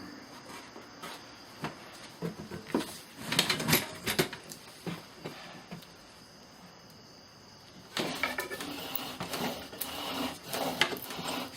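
Scattered knocks and taps of a wooden bow-drill set being handled and positioned. From about eight seconds comes a continuous rasping as a bamboo bow spins a yucca spindle against the hearth board.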